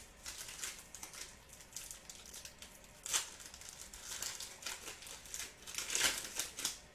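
Trading-card packaging crinkling and rustling in hand as football card packs are opened and cards handled, in irregular bursts that are loudest about three seconds in and around six seconds.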